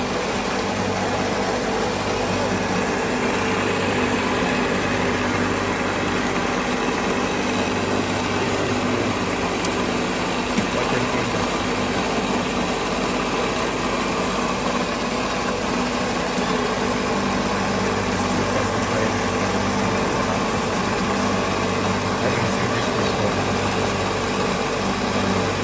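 Electric-motor-driven peanut butter grinding mill running steadily: a continuous, even mechanical hum.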